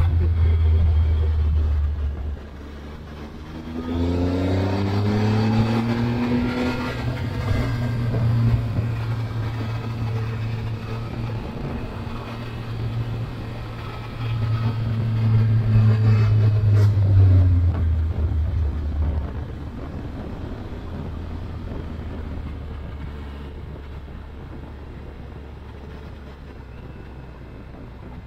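Triumph Tiger 1200 Explorer XRT's three-cylinder engine under way. The engine dips about two seconds in, then pulls up with its pitch rising about four seconds in, runs steadily, swells again just past the middle, and drops to a quieter drone that fades toward the end.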